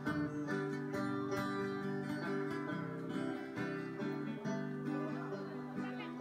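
Acoustic string band playing: strummed and plucked acoustic guitars with a banjo.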